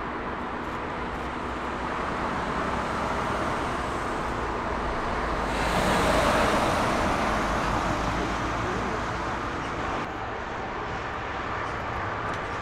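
Jet airliner passing: a steady engine roar that swells to its loudest about six seconds in and then eases off, with faint steady engine tones beneath it.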